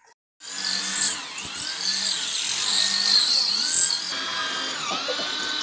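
Electric drill boring into a concrete wall, its motor pitch rising and falling about once a second. It starts about half a second in.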